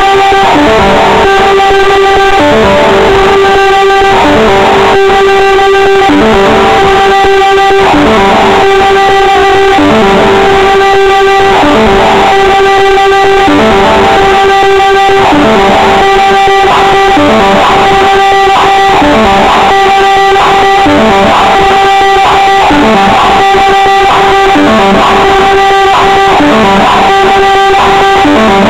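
Loud music with distorted electric guitar, played through a car audio system's wall of loudspeakers at full volume.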